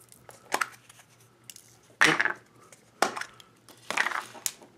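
Plastic blind-bag packaging crinkling and crackling as it is handled, in four short bursts about a second apart.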